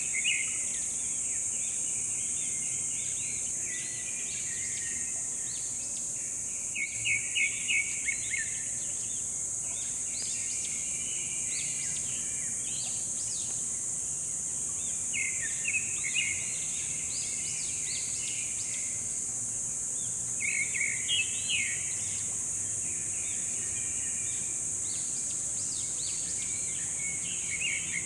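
Birds chirping in quick runs of short notes every few seconds over a steady high-pitched insect buzz.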